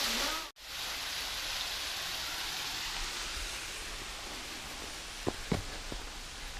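Steady rush of creek water, cut off for an instant about half a second in, then going on a little quieter. Two short sharp ticks about five seconds in.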